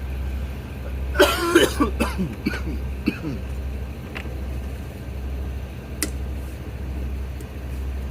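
Vehicle engine idling with a steady low, gently pulsing rumble. About a second in there is a short, harsh cough-like sound, followed by a few small clicks and taps.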